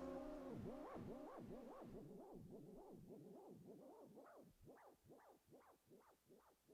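Faint electronic warble fading out at the end of a piece of music: a repeated up-and-down pitch sweep, about two to three sweeps a second, growing steadily quieter.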